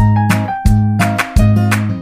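Upbeat pop song in a short instrumental gap between sung lines: a steady drum beat over bass notes, with guitar.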